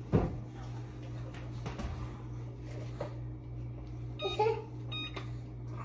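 Electric range's touch control panel beeping as its buttons are pressed: two short electronic beeps, about four and five seconds in.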